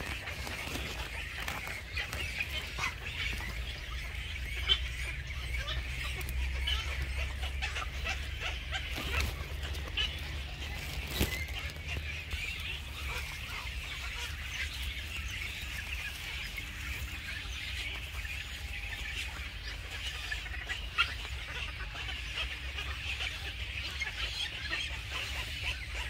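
A steady chorus of bird calls, thick and continuous, over a low wind rumble on the microphone, with a few sharp clicks.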